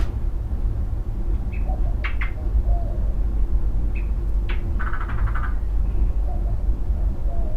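Wild animal calls: short high chirps and raspy, rapidly pulsed calls come in clusters about every two to three seconds, over a steady low rumble.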